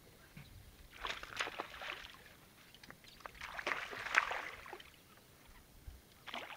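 Water splashing in two bursts, a short one about a second in and a longer, louder one around the fourth second: a hooked bass thrashing at the surface as it is reeled in to the boat.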